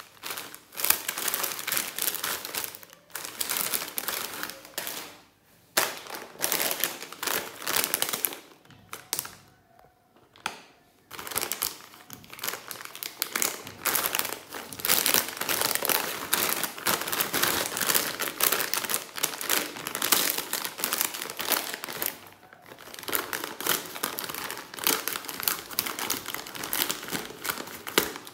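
Plastic chip packets crinkling as hands squeeze and turn them, in irregular bursts broken by a few short pauses, the longest about ten seconds in.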